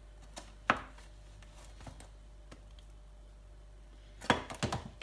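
Kitchen utensil knocking against a dish: one sharp knock under a second in, then a quick run of clatters near the end.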